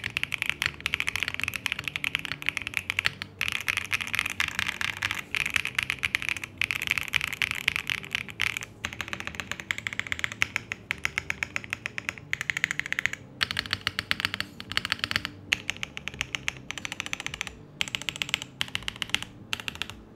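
Fast typing on an MKC75 mechanical keyboard with a POM plate, fitted with Gateron Smoothie linear switches (full POM housings and stem, long pole, factory lubed), giving a soft clack. Steady bursts of keystrokes broken by short pauses every few seconds.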